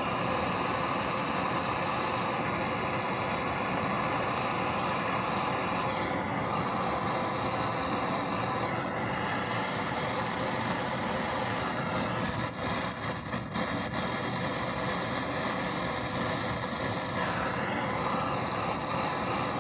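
Gas torch flame burning with a steady hiss, heating the pressed-on pinion gear on a Norton Commando crankshaft to free it; the sound wavers briefly about two-thirds of the way through.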